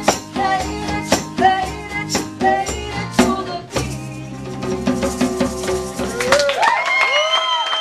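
Live group cover of a pop song: singing over a hand-played djembe beat with violin and guitar. About six and a half seconds in, the playing stops and voices whoop as the song ends.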